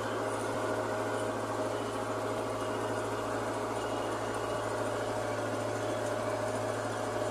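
JCB backhoe loader's diesel engine running steadily at an even speed, with a constant low hum.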